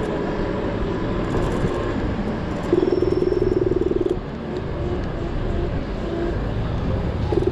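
Wind and road noise from an electric scooter riding through a city street, a steady rush with no motor sound. About three seconds in, a loud buzzing tone sounds for about a second and a half, and it comes again briefly at the end.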